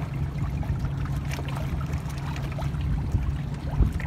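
A small catamaran moving through calm water, its hulls splashing and lapping irregularly over a steady low rumble.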